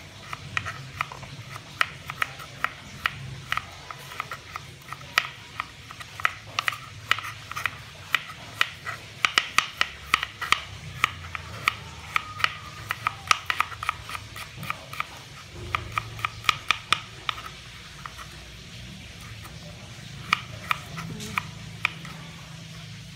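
A kitchen knife slicing fresh ginger on a plastic cutting board: quick, irregular taps of the blade hitting the board. They run busiest through the middle, thin out briefly, and pick up again near the end.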